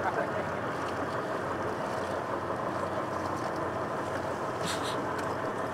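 Steady running of a lifeboat's engine, heard on deck with wind and sea noise.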